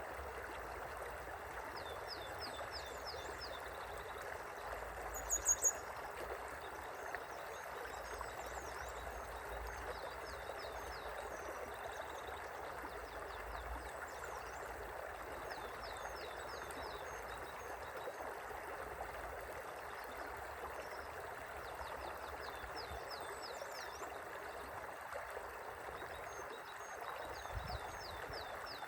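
Steady rushing and gurgling of a gently flowing river. Over it come repeated quick series of short high chirps, and a few sharp high clicks about five seconds in.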